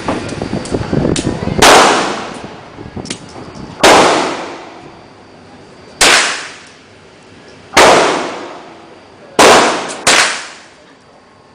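Six gunshots fired one at a time, mostly about two seconds apart, with the last two coming close together. Each report rings out and fades over a second or so.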